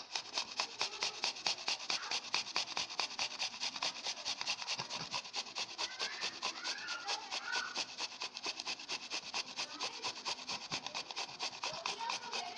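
An apple slice being grated on a stainless steel flat grater, with rapid, even rasping strokes at about five or six a second.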